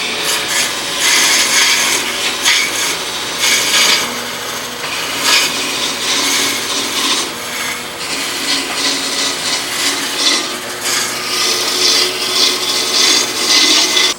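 Wood being worked on a spinning wood lathe: a tool or abrasive rubbing against the turning wood gives a rasping, scraping hiss that swells and fades over a low steady hum.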